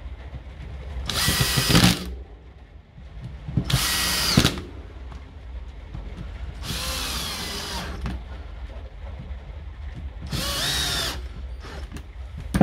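Cordless drill driving screws into the front housing of a Milwaukee M18 Fuel impact wrench: four short runs of motor whine a few seconds apart, one per screw.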